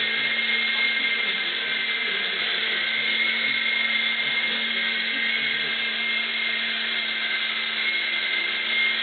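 Three-channel RC helicopter in flight, its motors and rotors running steadily as a high-pitched whine over a faint low hum, the pitch wavering slightly.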